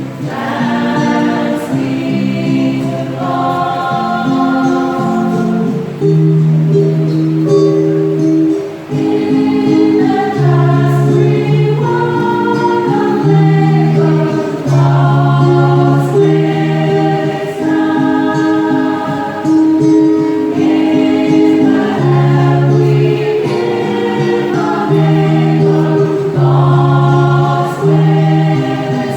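Church choir singing, several voices holding notes together in chords that change every second or two.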